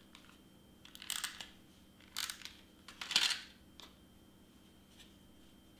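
Double-sided tape runner applying tape to a piece of cardstock: three short noisy strokes about a second apart, the last the loudest, then a couple of faint clicks.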